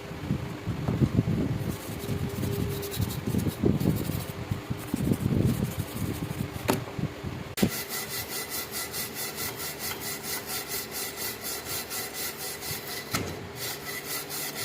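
Rust being scrubbed off a steel knife blade by hand with an abrasive. At first the rubbing strokes are uneven. About halfway through, after a click, it settles into quick, even back-and-forth strokes with a bright hiss.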